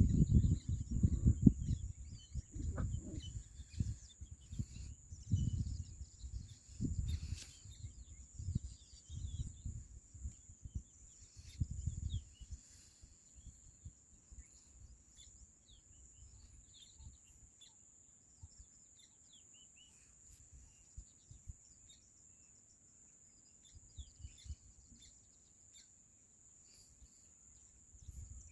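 Storm wind gusting and buffeting the microphone with a low rumble for the first dozen seconds, then dying down. A steady high-pitched hiss runs throughout, with faint bird chirps.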